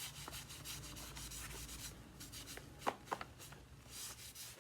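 Hand-rubbing strokes scrubbing grime off a stick vacuum's housing, short and irregular, over a faint low hum that fades out about two seconds in.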